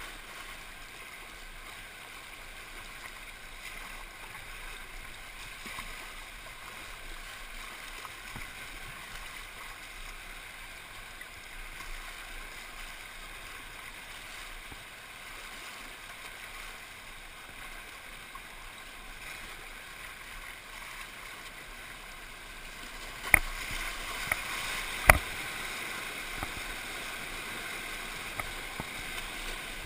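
Fast, flood-swollen river water rushing and splashing around a kayak, heard through a GoPro camera's waterproof housing: a steady rushing noise. Near the end come a few sharp knocks, and after them the water noise gets a little louder as the boat runs whitewater beside a boulder.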